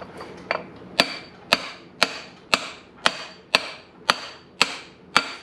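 Short-handled sledge hammer tapping a socket to drive a bearing's inner race into a mulcher's bearing housing: steady, light metal-on-metal taps about two a second, each with a brief ring, as the bearing walks evenly into its bore.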